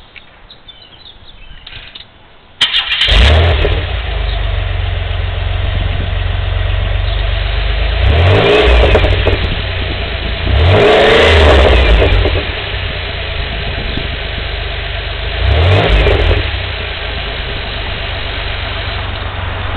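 Pontiac Bonneville's 3800 V6 starting up about two and a half seconds in and idling through a new high-flow muffler. It is revved three times, the longest rev in the middle, each time dropping back to a steady idle.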